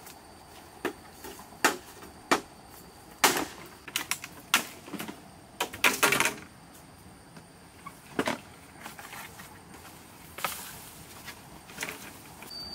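Hollow green bamboo poles knocking and clattering against each other as they are handled and stacked: about a dozen irregular sharp knocks, some with a short hollow ring, with a denser clatter about six seconds in.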